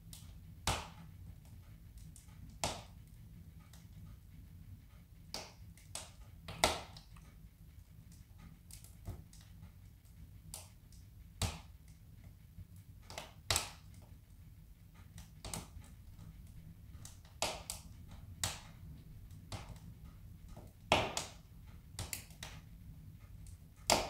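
Split logs burning in a wood stove: irregular sharp crackles and pops, about one a second, a few much louder than the rest. A low steady hum sits under them.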